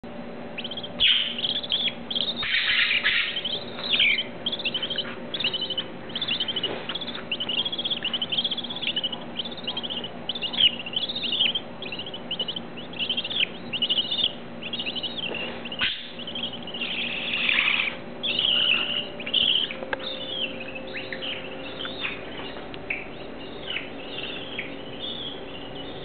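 Budgerigars chirping rapidly and continuously in many short, high calls. The chirping thins out to a few scattered calls near the end.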